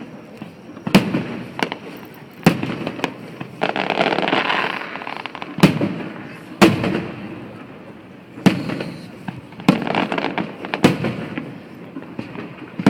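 Aerial fireworks bursting: about eight sharp booms a second or more apart, with a dense crackling stretch about four seconds in.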